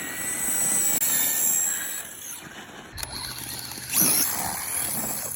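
RC car running with a high-pitched whine that wavers in pitch, with a sharp knock about three seconds in and a louder burst about a second later.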